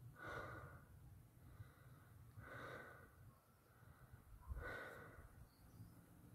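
Near silence with three faint breaths about two seconds apart.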